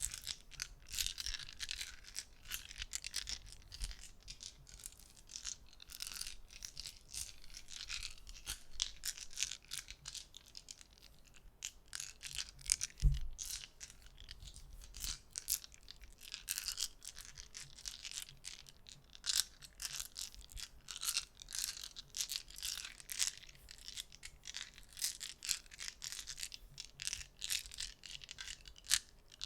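A handful of polyhedral gaming dice clicking and clattering together, handled close to the microphone, in dense irregular clicks. One low thump about 13 seconds in.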